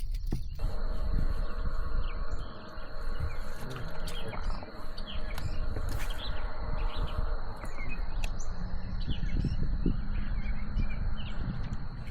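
Small birds chirping and tweeting in short, scattered calls over a steady low rumble, with a thin, high, steady whine underneath.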